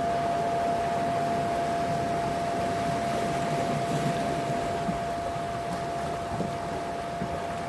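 Steady wash of sea waves at night, with a single constant tone held level throughout.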